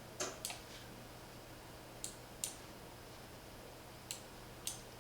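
Computer mouse buttons clicking: six short, light clicks, in pairs about two seconds apart, while on-screen settings are adjusted.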